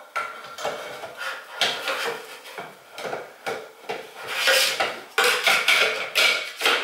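Glass bowl of a ceiling light scraping and clinking against the fixture's ceiling base as it is fitted into place, in irregular knocks and rubs that are loudest in the second half.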